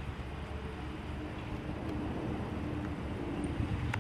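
Steady low rumble of road vehicles passing, with a faint drone in the middle.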